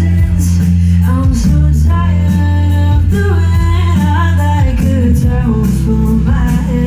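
A live band playing a song, with a lead vocal line sung over sustained bass and guitar and a steady beat of percussion hits.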